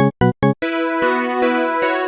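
Electronic video-game-style music: three short staccato synth notes, then about half a second in a full chord of held synth tones comes in.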